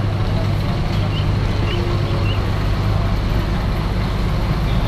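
A large diesel coach engine running at low revs close by: a steady, deep rumble.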